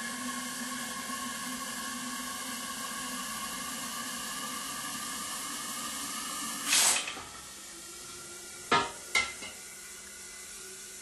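Liquid nitrogen being drawn from a dewar through a withdrawal tube into a cryocautery canister: a steady hiss of boiling, venting nitrogen with a faint whistle. About seven seconds in comes a short, louder rush of spray, then the flow stops, and two sharp metal clinks follow.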